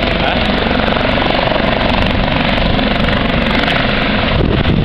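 Eurocopter AS365N3 Dauphin helicopter hovering and lifting off close by: a loud, steady beat of the main rotor over the running turbine engines.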